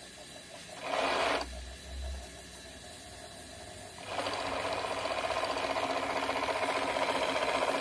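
Small model steam engine, fed by a Kingdon vertical boiler, starts about four seconds in and runs with a fast, even mechanical clatter. Before it, a brief loud hiss about a second in.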